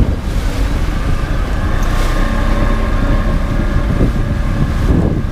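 Wind buffeting the microphone on a boat out on open water, a dense low rumble throughout. A faint steady hum joins about two seconds in.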